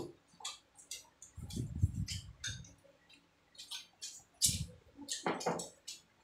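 Chopsticks tapping and clicking irregularly against small rice bowls while people eat, with chewing and mouth sounds in between.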